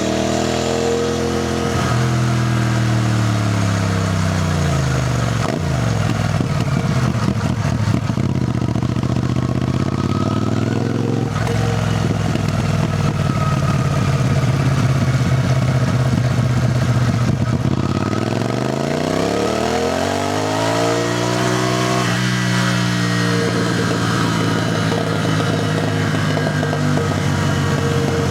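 CFMoto 450NK motorcycle's parallel-twin engine on the move. The revs fall away over the first several seconds as the bike slows, stay low for about ten seconds, then climb again about two thirds of the way in as it accelerates, and hold steady to the end.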